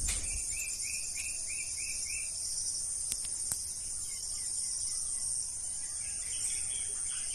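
Garden ambience: a steady high-pitched insect drone. A bird repeats a short, slightly falling note about six times in the first two seconds, and more bird chirps come near the end.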